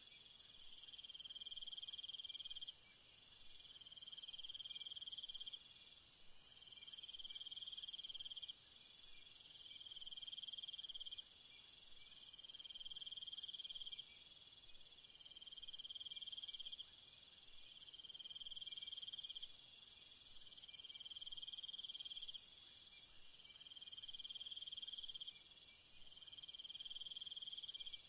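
Chorus of night insects: a steady high-pitched drone, with a lower trill that repeats about every two seconds.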